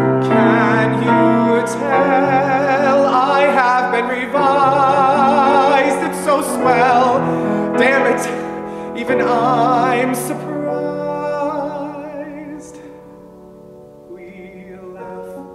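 A young male singer holding long notes with vibrato over grand piano accompaniment. About ten seconds in the voice stops and the piano carries on softly.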